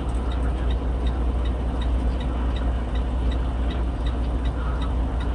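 Steady road and engine noise of a car driving at highway speed, heard as a dashcam's recorded audio played back through the camera's small speaker, with a constant low hum underneath.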